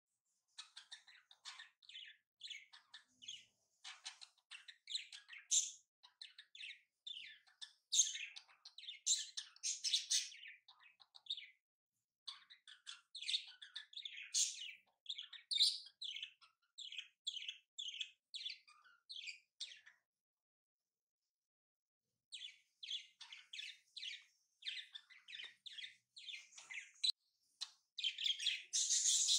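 Small birds chirping and twittering in quick runs of short calls, with a break of about two seconds two-thirds of the way through.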